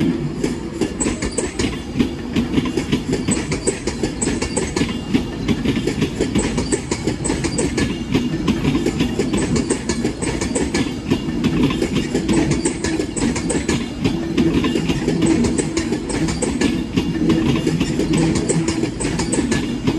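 Avanti West Coast express train moving out past the platform, its wheels clicking steadily over rail joints and pointwork under a continuous low rumble.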